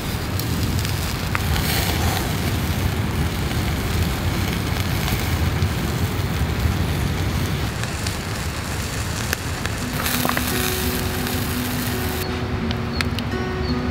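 Yakitori skewers of chicken and pork sizzling over charcoal on a shichirin grill, a steady hiss with small crackles from the coals.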